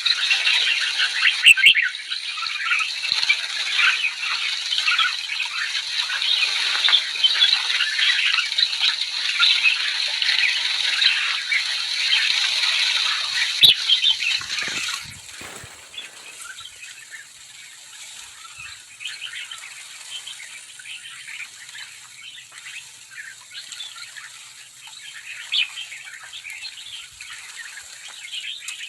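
A large flock of sooty-headed bulbuls chattering, with many overlapping calls. About halfway through it drops suddenly to quieter, sparser calls.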